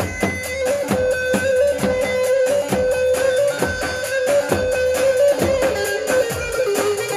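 Folk dance music: a held melody line that steps up and down in pitch over a steady, even drum beat.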